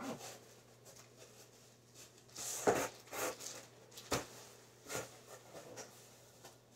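A package being opened by hand: packaging rustling and scraping, with a few sharper crackles, the loudest about two and a half seconds in.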